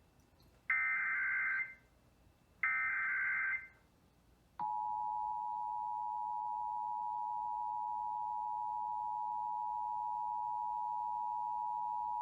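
Emergency Alert System SAME header data: two harsh digital bursts about a second long, a second apart. About four and a half seconds in, the EAS two-tone attention signal starts and holds steady, announcing a statewide EAS test message.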